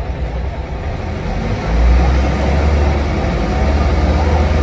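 Single-decker bus's diesel engine heard from inside the passenger saloon: a steady low drone that grows louder about two seconds in as the engine takes up load and the bus moves off.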